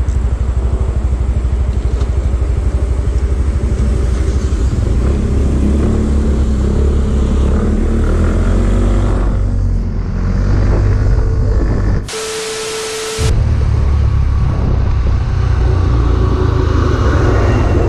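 Motorbike riding along a road: engine running and a heavy, fluttering wind rumble on the bike-mounted microphone. About twelve seconds in, the ride noise cuts out for about a second, replaced by a steady hiss with a faint tone.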